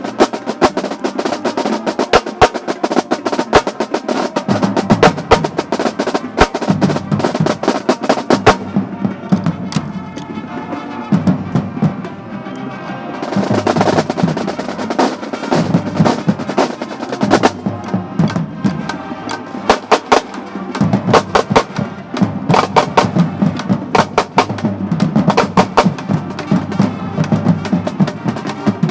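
A marching band drumline playing a cadence: rapid snare drum strokes and rolls with bass drum hits, and a brief stretch of louder, brighter playing about halfway through.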